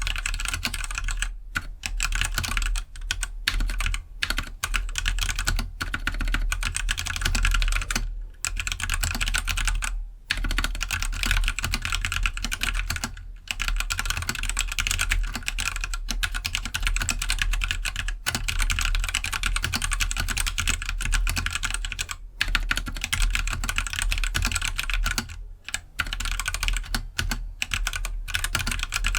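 Continuous fast typing on a Keydous NJ68 65% mechanical keyboard with stock Gateron Black linear switches, a rapid stream of keystroke clacks broken by a few short pauses.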